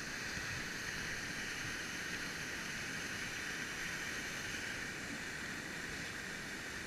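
Mountain torrent pouring over a small waterfall into a pool: a steady, even rush of water.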